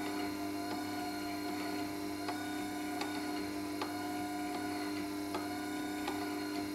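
Record Power WG250 wet stone grinder running with a steady hum, with a light tick repeating about every three-quarters of a second.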